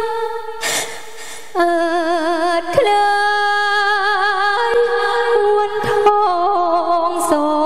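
Likay singer's voice holding long, drawn-out notes with a wide, even vibrato, stepping between pitches. About a second in the voice briefly breaks off, and a few sharp clicks fall in the singing.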